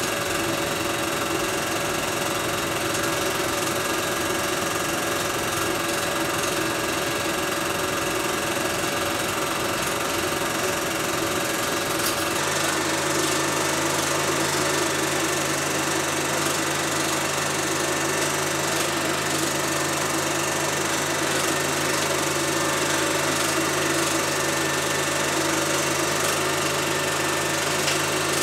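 Film projector running: a steady mechanical whir and clatter, its low hum shifting in tone about twelve seconds in.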